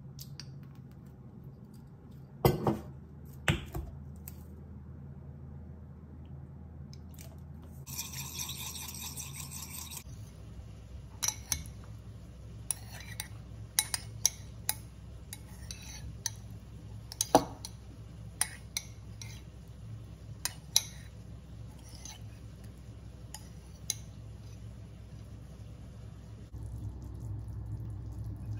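Kitchen prep sounds: a metal spoon clinking and tapping against a ceramic bowl in a run of sharp clicks, with two louder knocks a few seconds in and a short hissing rush about a third of the way through, over a low steady hum.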